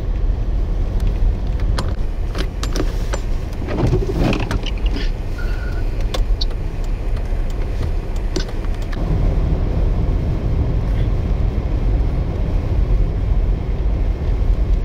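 Road traffic on snow-covered streets: vehicle engines and tyres with a heavy low rumble. A cluster of sharp clicks and knocks comes a few seconds in, and the sound changes character about nine seconds in.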